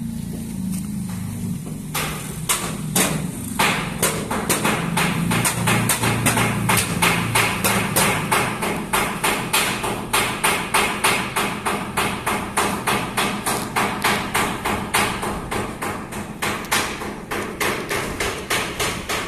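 Hammer blows on sheet metal in a truck-body workshop: a few scattered knocks, then steady rhythmic hammering from about four seconds in, about two to three blows a second.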